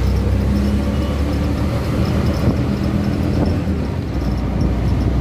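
Auto-rickshaw engine running steadily with road noise, heard from inside its open cabin while under way.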